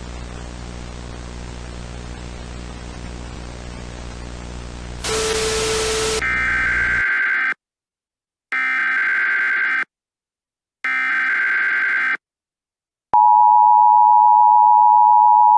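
Static hiss, then a brief louder burst of noise, then three Emergency Alert System SAME header bursts: harsh digital screeches, each just over a second long, with about a second of silence between them. Near the end the steady two-tone EAS attention signal begins, the alarm tone that comes before a spoken emergency message.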